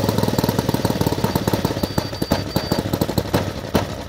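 Saito 125 Golden Knight four-stroke glow engine on a model biplane, slowing down and sputtering out: its steady running breaks up into separate pops that come farther and farther apart as it winds down to a stop.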